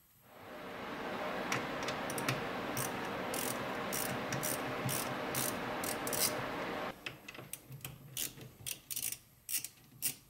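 Ratchet wrench clicking as the battery terminal clamps are tightened: a fast, continuous run of clicks for about seven seconds, then slower single clicks.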